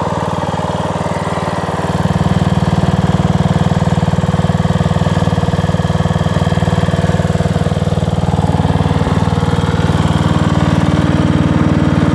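Simplicity 4212 garden tractor's engine running steadily at idle, getting a little louder about two seconds in.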